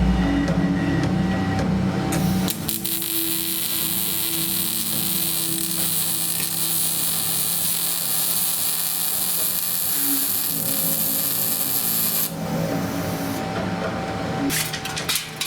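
A shop tool runs with a steady hiss for about ten seconds, starting a couple of seconds in and cutting off abruptly.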